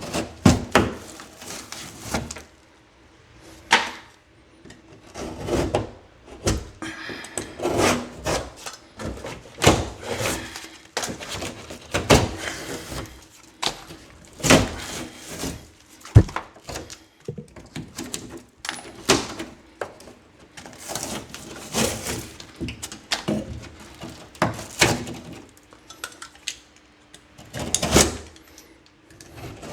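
Drywall being cut with a keyhole saw and worked loose by hand: irregular rasping saw strokes, scrapes and knocks against the board, with one sharp knock about halfway through.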